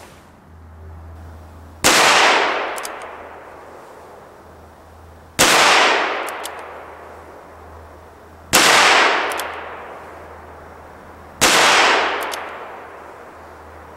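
Four shots from a Ruger Single Six single-action revolver firing .22 Magnum, about three seconds apart, each with a ringing tail that dies away over a second or more. Faint clicks come between shots as the hammer is cocked.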